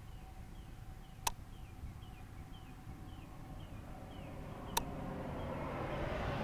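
A low steady rumble with a thin steady tone. Over it a faint, short falling chirp repeats about twice a second, with two sharp clicks, and a rushing noise swells over the last couple of seconds.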